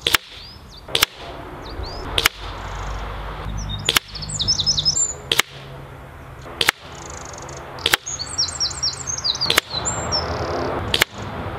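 Brocock Compatto pre-charged pneumatic air rifle shooting a string of about nine shots, one every second and a half or so, each a sharp crack. Birds sing in short chirping runs between the shots.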